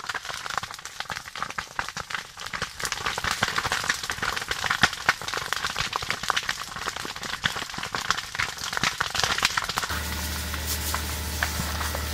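Burning cane stalks crackling and popping densely and irregularly in a fire. About ten seconds in, a steady low hum joins the crackling.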